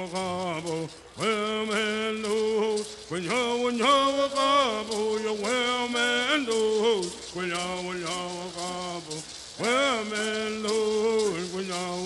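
Men singing a Southern California bird song in phrases with gliding pitch, over a steady shaking of rattles. The singing breaks briefly about a second in and again around nine seconds in.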